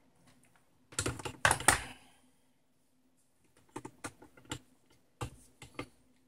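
Plastic clatter and clicks as a digital multimeter and its test leads are handled and set on top of a car battery: a loud rattle about a second in, then two short runs of light clicks.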